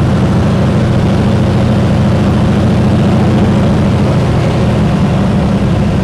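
De Havilland Beaver's Pratt & Whitney R-985 nine-cylinder radial engine and propeller running steadily, heard from inside the cabin as the plane descends on approach to land.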